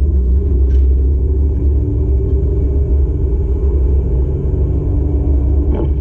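Steady low rumble of a car's engine and road noise heard from inside the cabin while driving, with a short click near the end.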